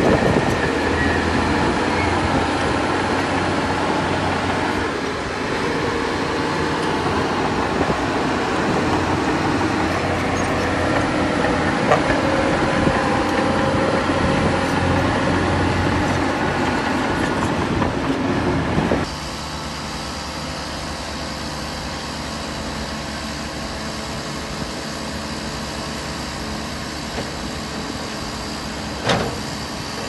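Diesel earthmoving machinery running under load, a dense mechanical clatter and engine drone. About two-thirds of the way through the sound drops suddenly to a quieter, steadier engine drone, and there is a single knock near the end.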